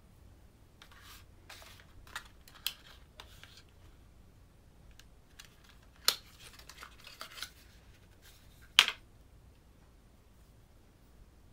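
Small paperboard cosmetics box being handled and opened by hand: scattered rustling, scraping and light tapping, with two sharp clicks, the loudest about six and nine seconds in, as the powder-blush compact comes out of the box.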